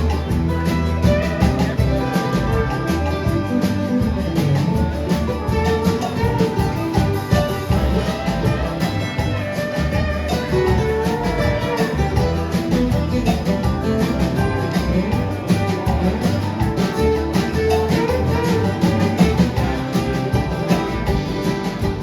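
A band playing music led by guitar and other plucked strings, with a steady bass and beat, in a country or bluegrass style.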